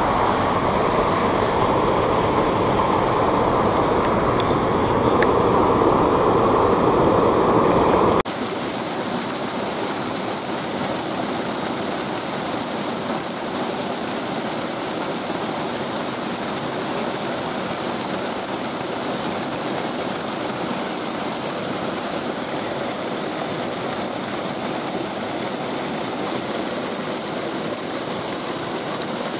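Creek water rushing over a riffle and small falls, a steady, loud rush. About eight seconds in it changes abruptly from a heavier, lower rush to a brighter, even hiss.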